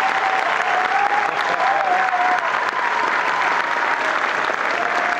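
Stadium crowd applauding steadily at the end of a drum corps performance. A thin wavering tone rides over the clapping for the first two or three seconds.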